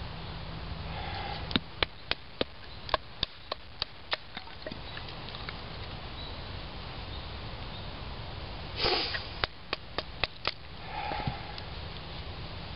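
Batoning cedar: a knife blade is tapped down through a small cedar stick, giving a run of about nine sharp wooden knocks at roughly three a second, then five more. A brief rasp comes between the two runs.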